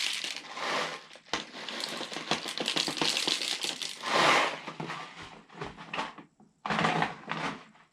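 Plastic airsoft BBs poured from a bag into a spring-powered airsoft grenade's tubes: a dense run of small clicks and rattles, with two louder rushes about four and seven seconds in.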